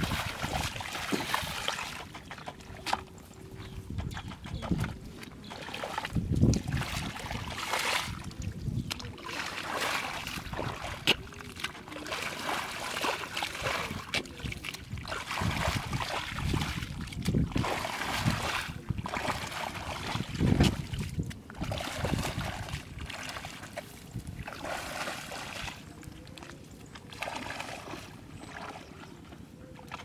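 Footsteps splashing and sloshing through shallow muddy water, coming as an irregular series of wet splashes with a few heavier thuds.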